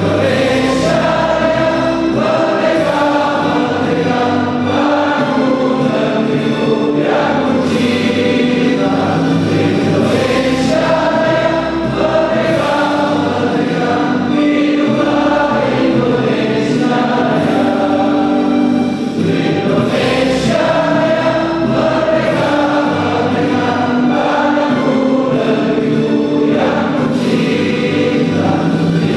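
A choir singing a slow, solemn song in held notes, loud and unbroken.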